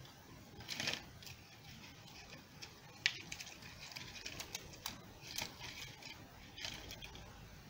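Faint rustling and light clicks of dry twigs and plastic wrapping ribbon being handled as a bundle of sticks is tied up, with a few short rustles spread through.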